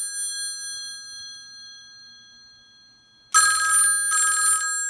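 Twin brass gongs of the Western Electric 202's subset bell ringer sounding an incoming call from a Panasonic 308 PBX in the UK double-ring cadence. One ring dies away, then a little over three seconds in comes another pair of short rings, ring-ring, which rings on as it fades.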